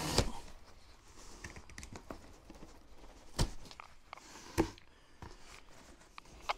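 A cardboard box flap being cut and torn free at the very start, then quieter handling with light rustling of polystyrene packing peanuts and a few sharp knocks, the loudest a little past halfway.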